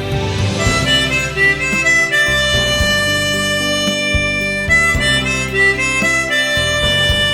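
Harmonica playing a slow melody of long held notes over a backing accompaniment.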